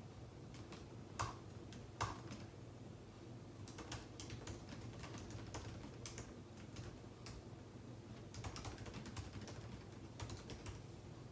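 Typing on a computer keyboard: irregular runs of key clicks with short pauses, and two louder keystrokes in the first two seconds.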